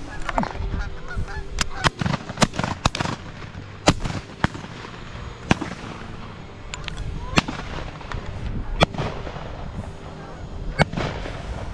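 A flock of Canada geese honking overhead while several shotguns fire a string of about a dozen sharp shots, scattered irregularly.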